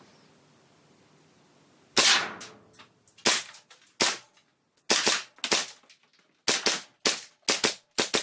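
Tokyo Marui Hi-capa gas blowback airsoft pistol, an Infinity Strayer-style race gun build, firing on green gas. About two seconds in, a string of sharp shots begins, fired singly and in quick pairs, with the first one loudest.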